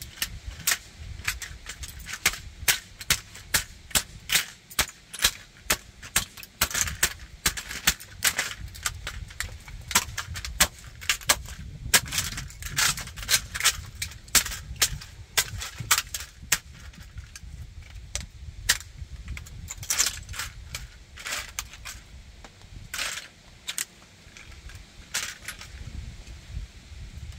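A model tanker truck being crushed underfoot on concrete: a rapid run of sharp cracks, snaps and crunches of its plastic and metal parts, thinning to scattered snaps in the second half.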